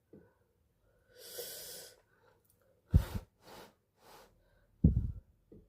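A woman's breath while she tastes hot food. There is a long breathy blow about a second in, then two sharp, forceful exhalations at about three and five seconds, with small puffs between them.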